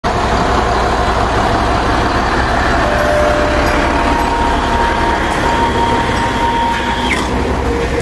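A fire engine's diesel engine running, a steady low rumble. A thin steady tone joins it about halfway through and stops shortly before the end.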